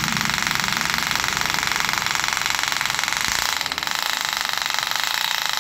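Bosch rotary hammer drill running in hammer mode, its 8 mm masonry bit boring into a masonry pillar: a loud, steady rapid hammering rattle, with a brief dip about three and a half seconds in.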